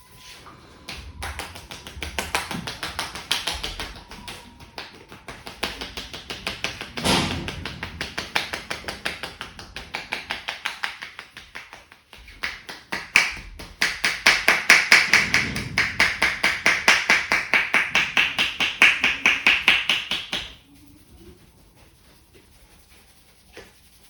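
Rapid, rhythmic tapping of hands on a person's head during an Indian head massage (champi), several strikes a second. It pauses briefly about halfway, runs louder afterwards and stops a few seconds before the end.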